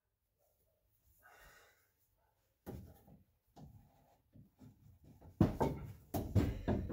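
Tools and lumber being handled at a wooden floor frame: scattered knocks and clunks. They are sparse and faint at first and become louder and more frequent in the last second and a half.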